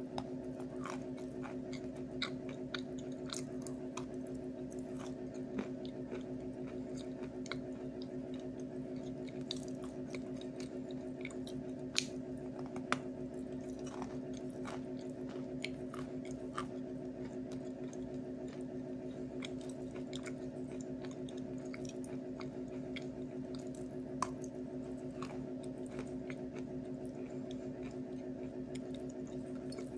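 A lump of Snezhok chalk being chewed close to the mouth: a continuous scatter of small crunches and crackles, with a few sharper crunches, over a steady low hum.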